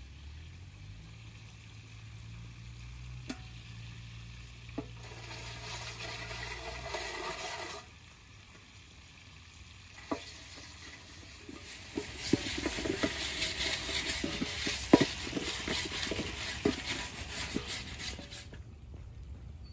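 Food frying in a wide pan over a wood fire, sizzling with sharp pops now and then. The sizzling grows louder and denser about twelve seconds in, then cuts off shortly before the end.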